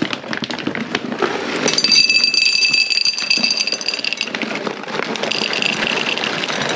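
Dry dog kibble poured from a bag into a metal bowl: a dense rattle of pellets striking the metal, with the bowl ringing a high tone for a couple of seconds in the middle.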